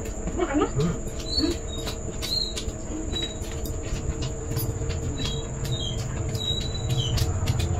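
Eating sounds of two people eating noodles and momos by hand: chewing and mouth clicks, with short high squeaks scattered through. A low rumble builds from about halfway.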